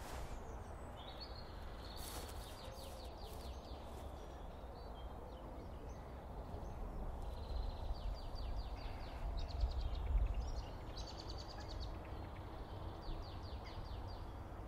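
Outdoor ambience: birds singing in short, rapid trills that recur several times, over a steady low rumble.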